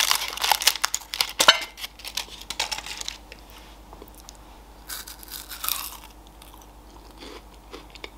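Gold foil wrapper of a Ferrero Rocher crinkling as it is peeled off, then a crunching bite into the chocolate-hazelnut wafer candy about five seconds in, followed by quieter chewing.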